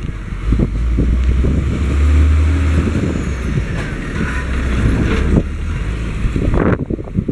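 Hino 500 concrete mixer truck's diesel engine running as it drives past close by, with tyre and road noise; the low engine drone is loudest about two to three seconds in.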